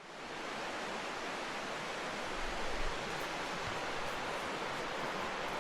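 A mountain creek rushing over rocks: a steady, even hiss of flowing water that fades in at the start.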